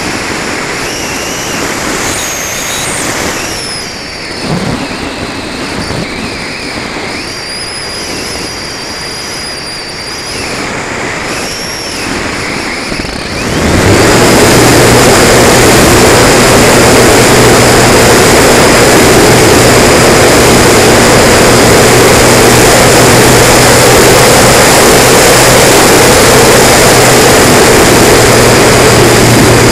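Air rushing past an RC electric glider as it glides with its motor off, with faint whistles rising and falling. About fourteen seconds in, the electric motor and folding propeller start abruptly at full power and run loud and steady, a constant drone with a high tone over it, as the model climbs.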